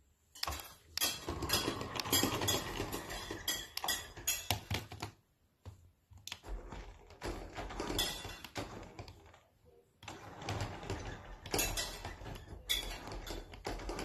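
Plastic toy car rolling and rattling across a hardwood floor as a parakeet pushes it, a run of irregular clicks and clatter that stops briefly about five seconds in and again near nine and a half seconds.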